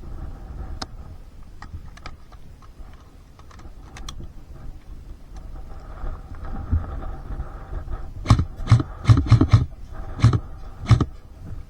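A quick, irregular run of about eight sharp thumps and knocks in the last few seconds, over a faint steady hum, with a few light clicks earlier.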